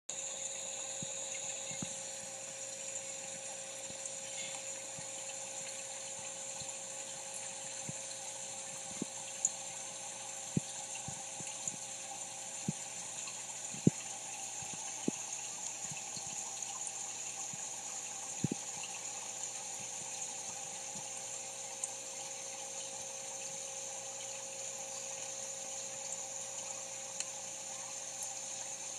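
Aquarium pump running with a steady hum and water hiss, with scattered sharp clicks.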